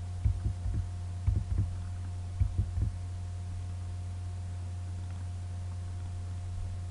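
Steady low electrical hum on the recording. In the first three seconds, soft dull thumps of mouse clicks come in small pairs and clusters, as a double-click would.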